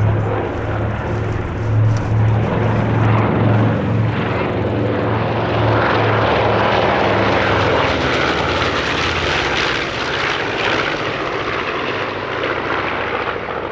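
PB4Y-2 Privateer's four Pratt & Whitney R-1830 radial engines and propellers droning on a low flypast. A low throbbing beat fills the first half, then gives way to a louder, fuller rush of engine and propeller noise around the middle that eases off slightly near the end.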